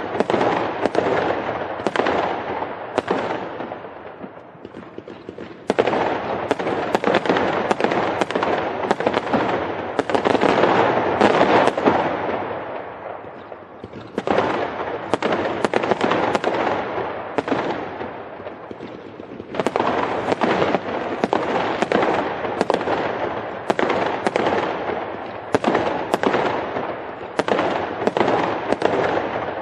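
Fireworks going off in rapid, dense volleys of sharp bangs over continuous crackling. The volleys ease off three times and then build up again.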